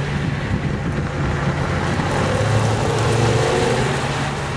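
BMW M5 Touring (E61) 5.0-litre V10 engine running at high revs as the car drifts in circles, swelling a little louder and higher about two seconds in.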